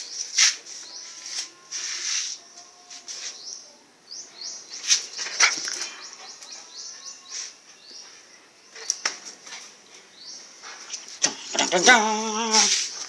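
A small puppy playing with a dangled cloth: cloth flapping and rustling, with scuffs and handling noises, over faint high chirps. Near the end comes a short wavering vocal sound.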